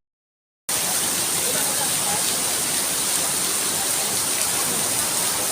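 Steady hiss of rain falling, mixed with rushing river water, cutting in after a brief dropout of silence at the start.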